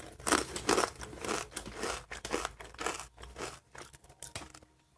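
Ranch Fritos corn chips being chewed close to the microphone: a run of irregular crisp crunches, a few a second, that tails off near the end.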